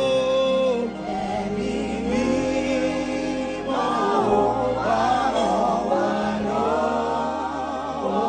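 Gospel worship singing: voices holding long, wavering notes over a steady low accompaniment whose chords change every second or two.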